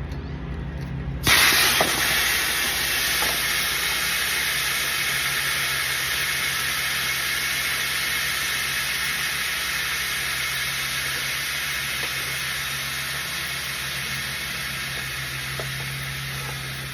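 Leftover freon refrigerant hissing out of a window air conditioner's copper line that has just been nipped open with cutters. The hiss starts suddenly about a second in, loudest at the start, then runs on steadily and slowly fades.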